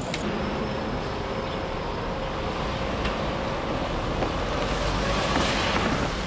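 Street traffic noise, a steady rumble of passing motor vehicles, with one vehicle growing louder as it passes near the end.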